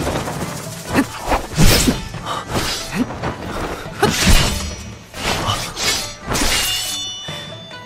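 Audio-drama sound effects: a run of sharp crashes and hits, some with a breaking, shattering edge, one after another, over background music. A few ringing high tones come in near the end.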